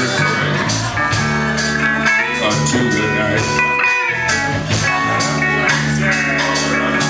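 Live band playing a blues passage without vocals: electric guitar over drums and a steady low line, with an even beat.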